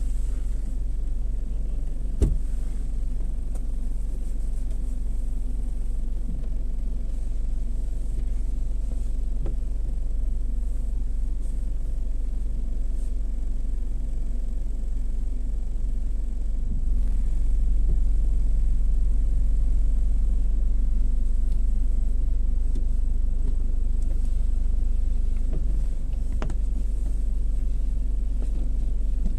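Gas-station automatic car wash running, a steady low rumble that grows louder for several seconds past the middle, with one sharp click about two seconds in.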